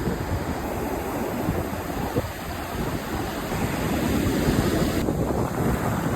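Ocean surf washing on the beach, with wind buffeting the microphone in uneven low gusts.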